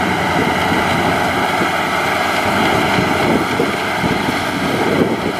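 Maxxi HD NDR 85 rice combine harvester running steadily under load as it cuts and threshes rice, its engine and threshing machinery giving a dense mechanical noise with a steady high whine over it.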